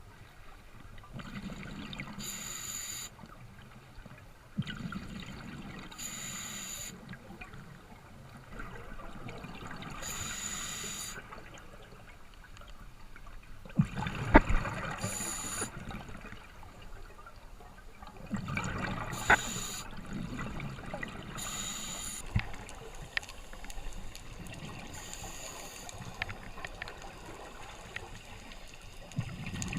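Ocean water washing and sloshing in uneven surges every few seconds, with a few sharp knocks, the loudest about halfway through.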